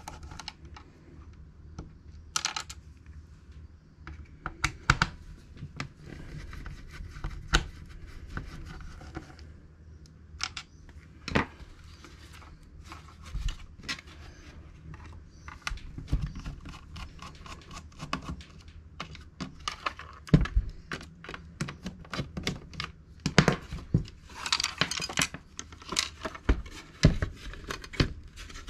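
Scattered sharp clicks, taps and scrapes of hands handling the plastic case and parts of an opened vintage National Panasonic transistor radio, with a rustle of about a second near the end.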